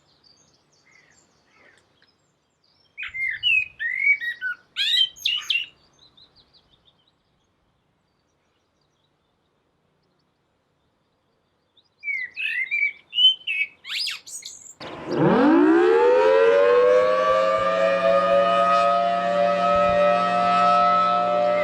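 Birds chirping in two short bursts, then, about 15 seconds in, a civil defense siren winds up from a low pitch and settles into a loud, steady wail of several tones.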